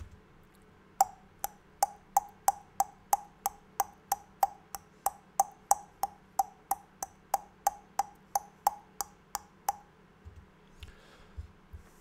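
A person making alveolar tongue clicks with the mouth, about three sharp pops a second, evenly repeated some twenty-five times, stopping shortly before the end.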